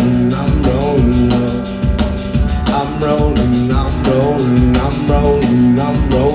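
Live band playing a stretch of a rock song without vocals: drums and guitar over a steady bass line, with a short melodic figure repeating about once a second.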